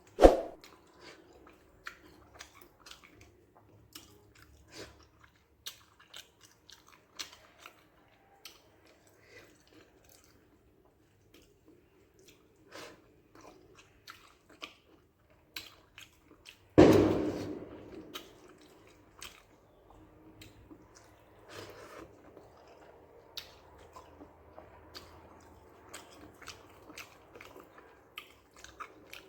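Close-up chewing and mouth smacking of someone eating rice with brinjal and okra curry, with many small wet clicks. Two loud sharp knocks stand out, one right at the start and a louder one a little past halfway that rings briefly.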